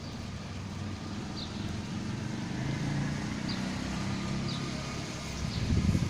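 A motor vehicle's engine running on the street, its low hum growing louder toward the middle and then fading.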